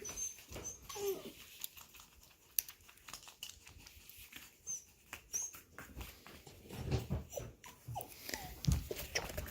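A puppy making a few short whining sounds, among scattered clicks and a few low knocks.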